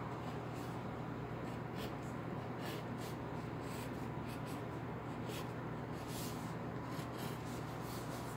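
Pencil scratching on paper in short, irregular sketching strokes, over a steady low hum.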